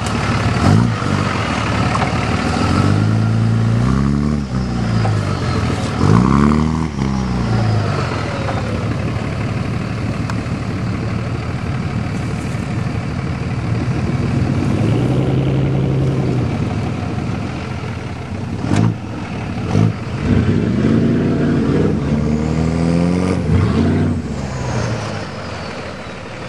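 Dodge Ram pickup's diesel engine revving hard again and again, its pitch climbing and dropping several times, while it labours under heavy throttle. There are two sharp knocks about two-thirds of the way through.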